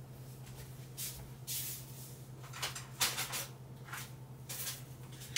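Scattered off-camera handling noises of someone fetching a pair of scissors: a few scuffs and clicks and a sharper knock about three seconds in, over a steady low electrical hum.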